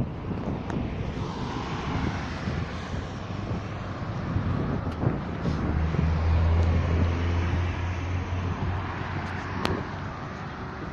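Roadside traffic noise: a motor vehicle's engine hum swells in the middle and holds for about three seconds, over a steady rumble of wind on the microphone and a few light clicks.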